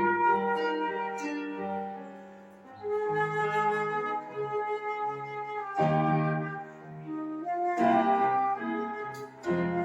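Flute playing a slow melody in held notes over a lower, sustained accompaniment, with short breaks between phrases.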